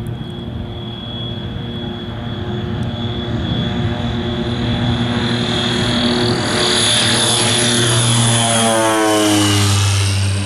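Twin-engine turboprop airplane, a de Havilland Twin Otter, at full takeoff power, climbing out low past the listener: propeller drone and high turbine whine grow steadily louder, then drop in pitch near the end as it goes by.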